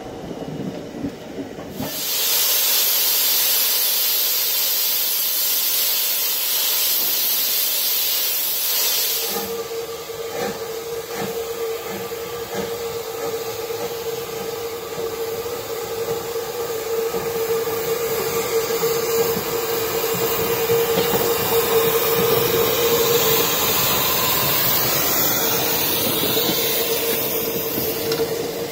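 British Railways (LMS) 4F 0-6-0 steam locomotive No. 43924, standing at the platform, hissing steam loudly. A few seconds in the hiss suddenly turns brighter and harsher for several seconds. It then changes to a fuller hiss with a steady whistling tone through it.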